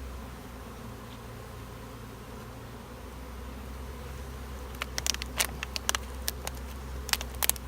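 Honey bee swarm buzzing steadily around an open hive. From about five seconds in, a quick run of sharp clicks and taps sounds over the buzz.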